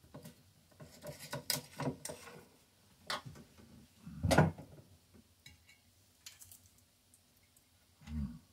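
Small clicks and knocks of a glass bottle and tableware handled on a wooden table, with one louder thud about four seconds in.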